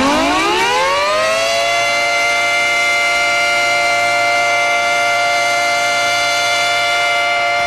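Quebec Nordiques' 1995 goal horn, a siren-like horn sounding loudly. It winds up in pitch over the first second and a half, then holds one steady wail.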